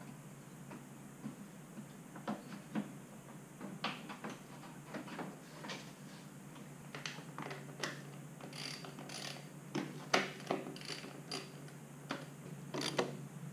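Irregular light metallic clicks and clinks of a hand socket wrench and bolts as bolts are refitted on a dirt bike.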